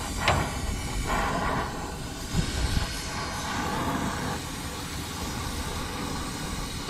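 Brazing torch flame hissing steadily as it heats a compressor's copper refrigerant line to free the brazed joint. There is a sharp tick near the start and a few brief louder swells and low knocks as the pipe is worked with pliers.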